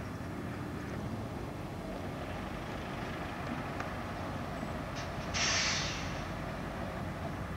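Diesel school buses idling with a steady low rumble, then a loud, short hiss of released compressed air from one of the buses about five and a half seconds in.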